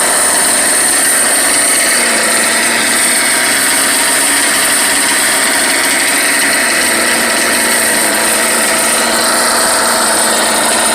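The small two-stroke engines of a twin-engine goped running steadily, with a constant high-pitched whine.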